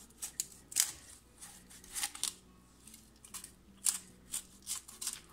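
Large kitchen knife cutting down a raw whole chicken's backbone: a quick, irregular series of short, sharp crunches as the blade goes through bone and cartilage.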